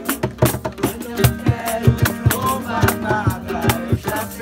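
Acoustic guitar strummed with people singing along, over hand percussion tapping a steady beat.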